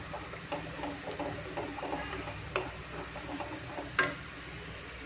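Wooden spatula stirring and scraping tomato paste in a steel kadhai, with many small taps, then a knock about four seconds in as the spatula is set down in the pan. A steady high-pitched hiss runs underneath.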